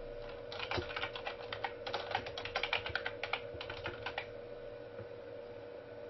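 Typing on a computer keyboard: a quick, uneven run of key clicks that stops about four seconds in.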